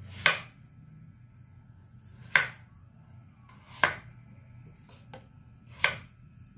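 Kitchen knife chopping peeled potato on a wooden cutting board: four sharp knocks of the blade striking the board, spaced about one and a half to two seconds apart, over a low steady hum.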